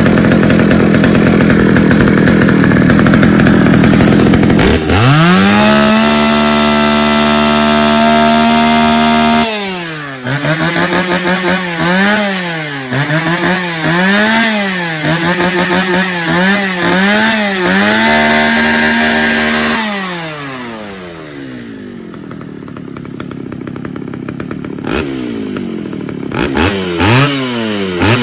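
Small two-stroke engine being test-run and revved. It runs high, then is held at steady full throttle, then is blipped up and down about once a second. It is held high again, drops back to idle about twenty seconds in, and revs up again near the end.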